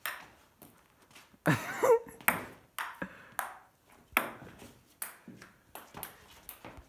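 Table tennis rally: the celluloid-type ball clicking off rubber paddles and the table, about two hits a second. A brief louder pitched sound comes about a second and a half in.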